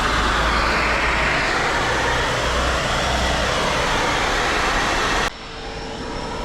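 Kärcher NT 15/1 Premium 1400 W wet and dry vacuum running loud with a steady rush of air, its pitch swelling and shifting. About five seconds in it breaks off suddenly into a quieter, steady whine that slowly grows louder.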